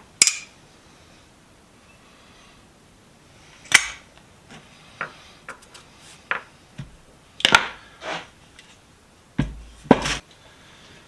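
Sharp metal knocks and clanks at irregular intervals, four loud ones and several lighter taps, from tools striking and handling the vise while its jaw screws are worked loose.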